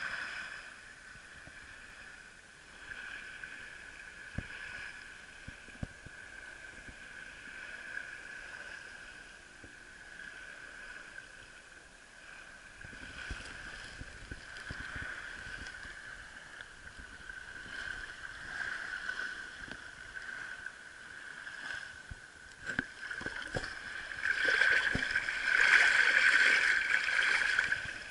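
Shallow seawater lapping and sloshing at the edge of a beach, with a few small knocks. The water gets louder and busier for the last few seconds.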